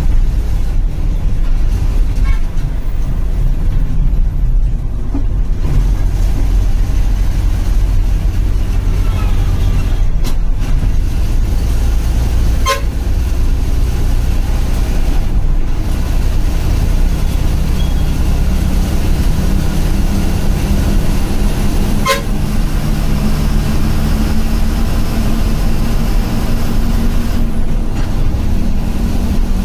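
Bus engine and road noise heard from inside the driver's cabin as a steady low drone, with two short horn toots: one a little before halfway and one about three-quarters of the way through.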